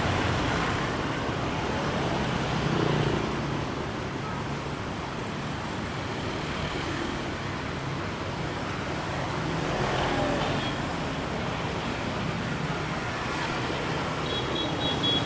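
Street traffic: a steady wash of road noise with vehicle engines passing, swelling about three seconds in and again about ten seconds in.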